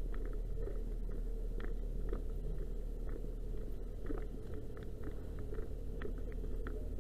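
Fire engine's pump engine running steadily as a low, even rumble, with scattered light clicks over it.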